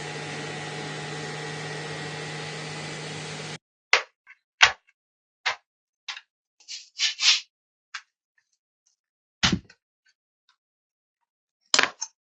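Laptop cooling fan running loud and steady with a hum and whine, a noise the repair shop puts down to dust-clogged fans and old thermal paste. It cuts off abruptly about three and a half seconds in, followed by a scattered series of sharp clicks and taps with silence between them.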